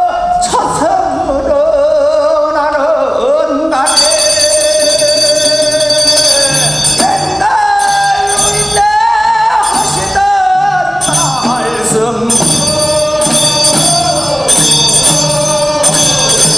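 Korean funeral bier-carriers' song (sangyeo sori): a male lead singer's chant, sung as the bearers carry the bier out. From about four seconds in, a handbell rings steadily alongside the singing.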